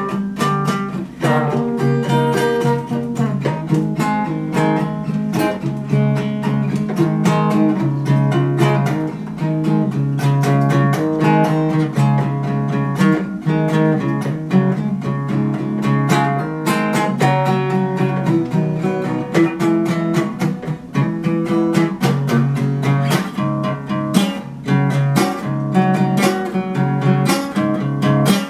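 Solo acoustic guitar played without singing, strummed and picked continuously with many quick notes over chords.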